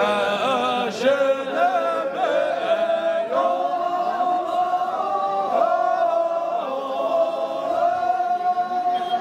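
A group of men singing a syabru song together, the line-dance song of the Hyolmo and Syabru communities. The melody moves in short phrases at first, then settles into one long held note from about three seconds in.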